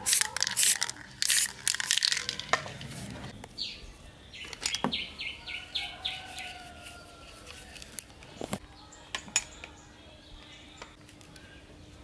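Aerosol spray paint hissing from a can in a rapid run of short bursts. After a pause come a few sharp clicks and knocks of metal and plastic fan-motor parts being handled.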